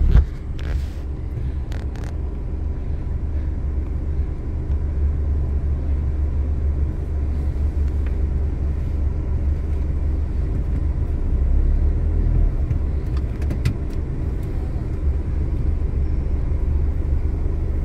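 Pickup truck on the move: a steady low rumble of engine and road noise heard from inside the cab, with a couple of light clicks about a second in.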